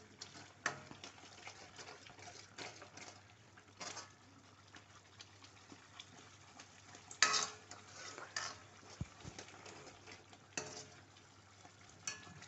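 Spoon stirring and scraping thick gravy in a cooking pan: a series of short scrapes and knocks over a faint sizzle of the gravy cooking.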